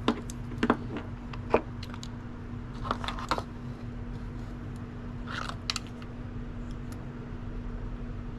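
Small sharp clicks and clatters of plastic wire connectors and small parts being handled on an RC car's receiver box: three snaps in the first couple of seconds, then short clusters of clicks, over a steady low hum.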